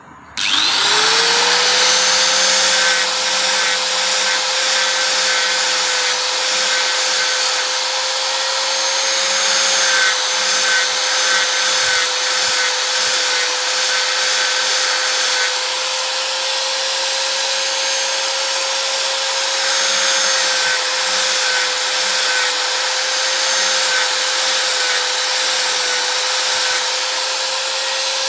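Electric angle grinder fitted with a sanding disc spins up about half a second in, its whine rising and then holding steady, while a piece of sonokeling rosewood root is sanded against the disc with a continuous rough rubbing.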